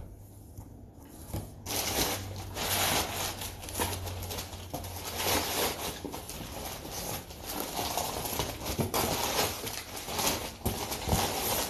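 Packaging rustling and crinkling as a hand rummages in a cardboard shipping box, starting about two seconds in, with a few light knocks.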